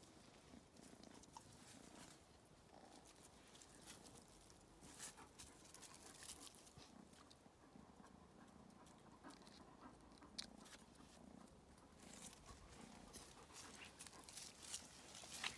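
Near silence: quiet outdoor ambience with faint, scattered short scratches and clicks.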